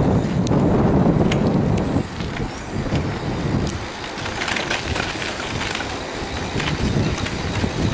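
Bicycle being ridden over tarmac: a low, uneven rumble of tyres and wind on the microphone, louder for the first two seconds, with scattered light clicks and rattles from the bike.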